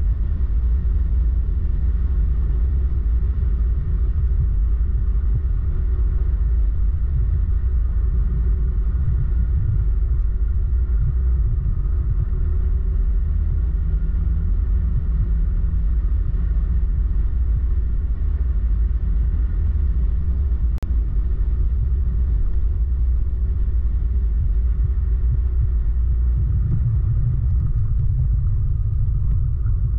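Motorcycle ride at road speed: a steady low rumble of wind on the microphone, with the engine running evenly beneath it. There is one small click about two-thirds of the way through.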